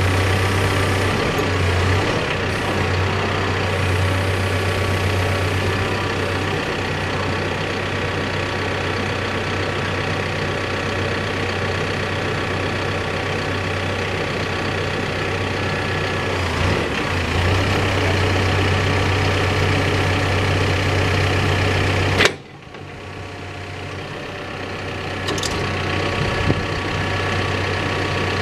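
Backhoe diesel engine running steadily with a strong low hum. About 22 seconds in, the hum cuts off abruptly and leaves a quieter, steady background noise.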